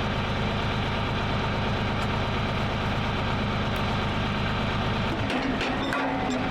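Portable sawmill's engine running steadily while milling a log, its tone shifting briefly near the end.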